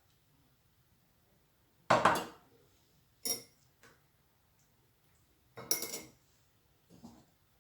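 Kitchenware clinking and knocking: cups, pots and spoons set down and handled in five separate short clatters, the loudest about two seconds in.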